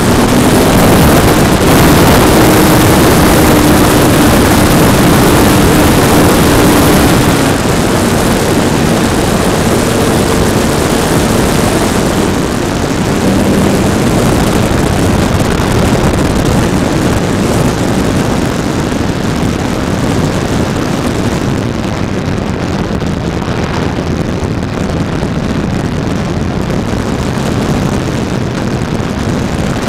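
E-flite PT-17 radio-controlled model biplane in flight, heard from its onboard camera: a steady rush of wind over the microphone, with the electric motor and propeller humming underneath. The hum's pitch shifts a few times. It is loudest for the first several seconds, then eases a little.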